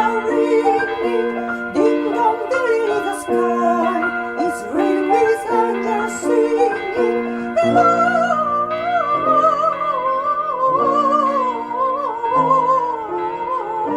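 Christmas song: a female voice singing in a classical, operatic style with vibrato over a keyboard accompaniment of repeated held chords; the voice rises to a higher, more prominent line about eight seconds in.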